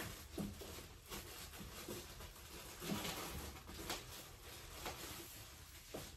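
Soft rustling and a few light, irregular taps and knocks as yarn skeins are handed up and set onto shelves.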